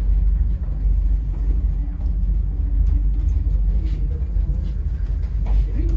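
Steady low rumble inside an aerial tramway cabin travelling along its cables.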